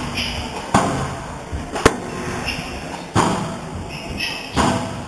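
Squash rally: the ball being struck by rackets and hitting the court walls, a sharp crack every second or so, each ringing briefly in the hall.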